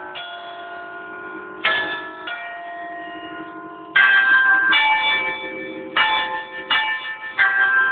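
Church bells chimed by a pinned chime barrel: its hammers strike the ring of six bells one note at a time, about six strokes at uneven spacing. Each bell rings on under the next, and the loudest stroke comes about halfway through.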